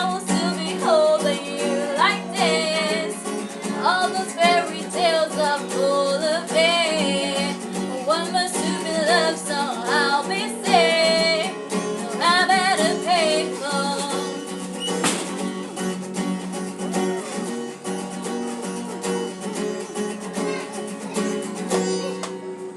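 Guitar playing chords with a voice singing a melody over it for the first half or so; then the guitar goes on mostly alone and stops shortly before the end.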